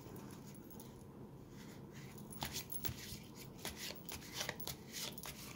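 A deck of stiff heart-shaped cards being shuffled by hand. From about two seconds in there is a run of quick, light flicks and clicks as the cards slide and snap against each other.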